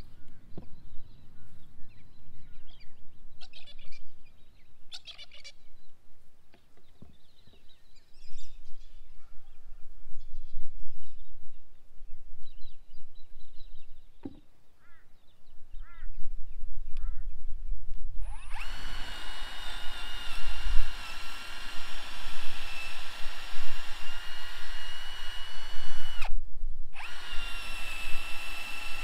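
A RYOBI One+ 18V cordless drill starts about two-thirds of the way in and runs with a steady high whine, drilling holes in a pine post for the trellis wires; it stops for a moment and starts again near the end. Before it, only faint bird calls and a low rumble of wind.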